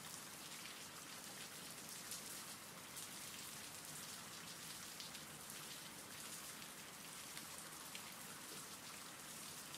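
Faint, steady rain falling: a rain-sounds ambience.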